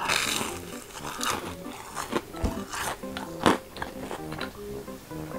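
Crunchy battered fried food (Korean twigim) bitten and chewed: a loud crackling crunch on the first bite, then sharper crunches as it is chewed, the loudest about three and a half seconds in.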